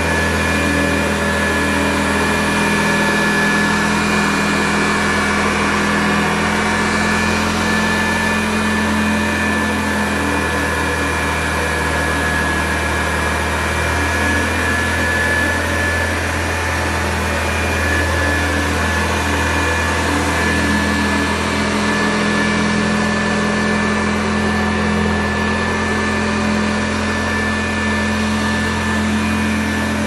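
1960 Hoover Convertible Model 31 upright vacuum cleaner running steadily while vacuuming: a constant hum with a high, steady motor whine, the low hum shifting slightly now and then.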